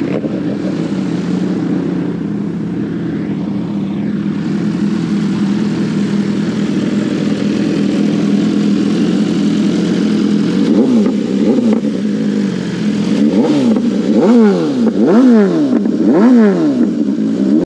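BMW S1000RR inline-four superbike engine idling through an Austin Racing aftermarket exhaust, then revved in about six sharp throttle blips, each rising and falling quickly, in the last seven seconds.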